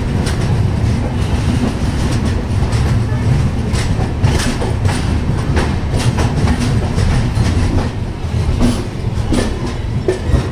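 Wheels of an LHB passenger coach rumbling and clattering irregularly over the track as the train rolls into a station on a curve, heard from the open coach doorway.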